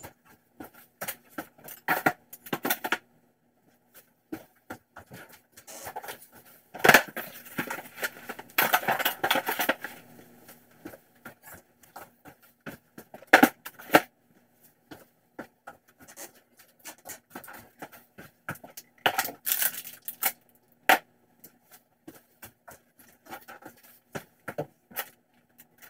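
Cardboard boxes and kit parts being handled and set down on a table: scattered knocks and thuds of cardboard landing and stacking, with stretches of cardboard scraping and packaging rustling, the loudest knocks a little past the middle. A faint steady hum runs underneath.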